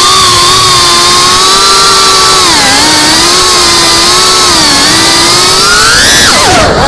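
Cinewhoop FPV quadcopter's motors and propellers whining, heard close up from the onboard camera. The pitch wavers up and down with the throttle and climbs sharply near the end.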